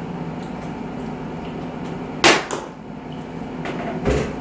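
A sharp knock about two seconds in, over a steady low hum.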